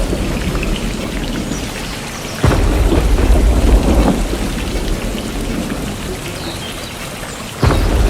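Rain falling with thunder: two sudden claps, about two and a half seconds in and near the end, each followed by a deep rumble that slowly fades.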